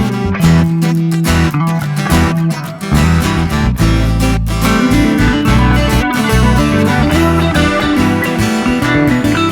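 Background music led by acoustic guitar, plucked and strummed, over a bass line.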